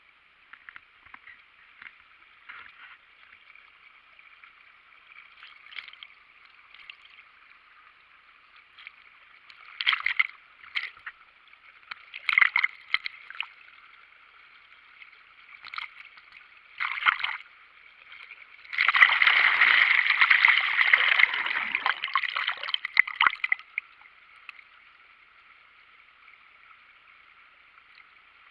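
Rushing water of a weir on the Isar: a steady wash of falling water, broken by several brief louder surges and a longer loud stretch of about five seconds past the middle.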